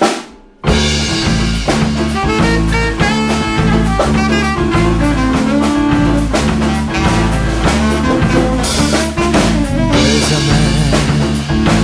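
Jazz band playing an instrumental passage, with no singing. A short hit right at the start and a half-second drop are followed by the full band coming back in loud, the drum kit and bass driving a steady beat.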